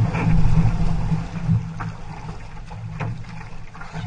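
Outrigger canoe running through choppy water: wind buffets the microphone with a heavy rumble, and water rushes along the hull, with a few short splashes from paddle strokes.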